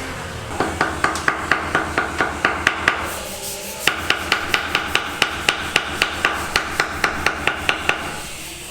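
Rapid, evenly paced hammer blows, about four or five a second, in two runs with a short pause about three seconds in.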